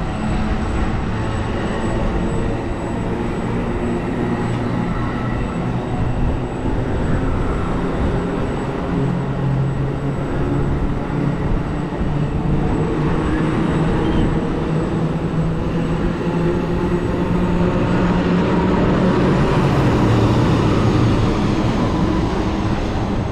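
Amtrak Pacific Surfliner passenger train running past, a steady mechanical and rail noise with a low drone, getting a little louder near the end.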